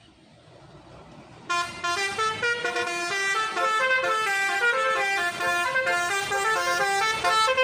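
Bus telolet horn playing a quick melody of stepping notes, starting suddenly about a second and a half in.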